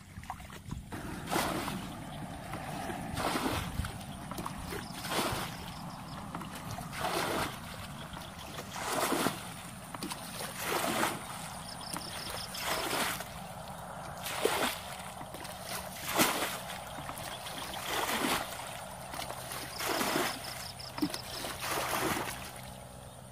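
Water being bailed by hand with a plastic bucket from a shallow muddy pool: a scoop and a splash as each bucketful is thrown out, about once every two seconds.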